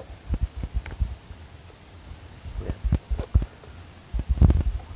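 Scattered light knocks, taps and clicks of a motorcycle voltage regulator and its wiring connector being handled during replacement, with a louder cluster of thumps near the end.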